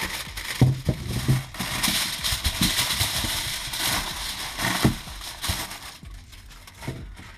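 Aluminium foil crinkling and crackling as it is folded and pressed flat by hand. The crackle dies down about six seconds in, leaving a few light ticks.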